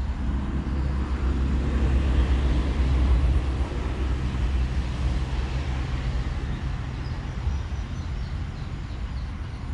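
A motor vehicle passing on the nearby highway: a steady engine rumble and tyre noise that swell to their loudest about two to three seconds in, then slowly fade.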